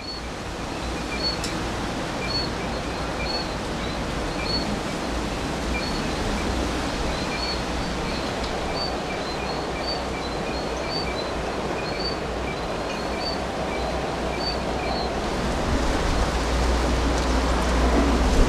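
Storm wind and rain making a steady rush of noise that grows louder near the end. Short high chirps repeat through it about once a second, stopping a few seconds before the end.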